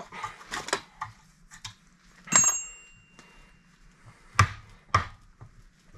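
Steel hand tools clinking and knocking against a tie rod clamped in a bench vise, as locking pliers are worked onto the tie-rod adjusting sleeve. There are scattered small clicks, one sharp metallic clank about two and a half seconds in that rings briefly, and a couple more knocks near the end.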